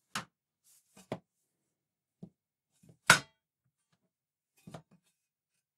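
The thin sheet-metal back plate of a ZX Spectrum +2 keyboard being handled, pressed flat and set down on a work surface: a series of short knocks and clicks, the loudest about three seconds in.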